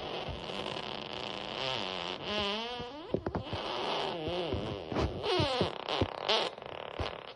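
Long, wobbling fart-like noise whose pitch bends up and down, breaking into short sputters from about three seconds in.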